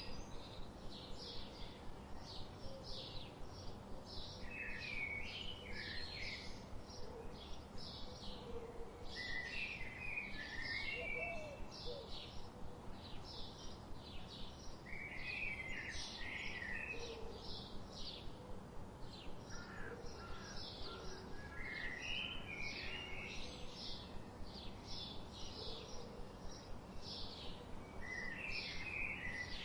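Budgerigars chirping and warbling: a continuous run of short, high chirps, several a second, with a burst of lower, chattering warble every few seconds.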